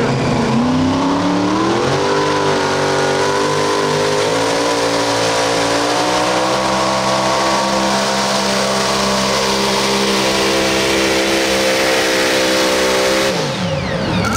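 Modified pulling tractor's engine launching under full throttle, climbing quickly in pitch, then holding high, steady revs under the load of the weight-transfer sled, with a small further rise about six seconds in. About a second before the end the throttle is shut and the engine pitch falls away quickly.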